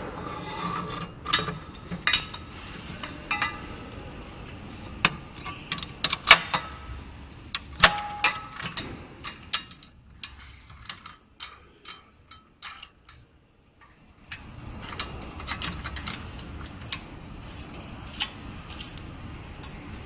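Scattered metallic clicks, knocks and clinks of LED display cabinet hardware being handled, as a stacking bracket and pole clamp are fitted. A quieter stretch comes about halfway through.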